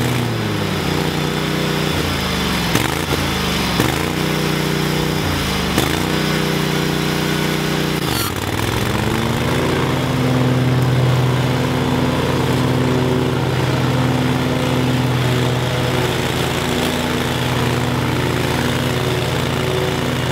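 Husqvarna V554 stand-on zero-turn mower's engine running; its pitch dips and recovers several times, with a few sharp clicks, then from about halfway it holds a steady, higher speed as the mower cuts tall grass.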